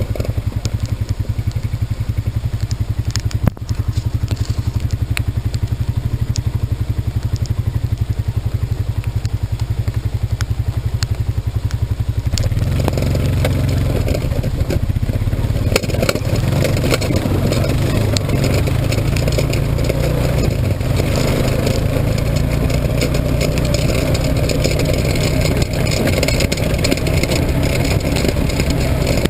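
A vehicle engine running steadily, then louder and fuller from about twelve seconds in, as under more throttle.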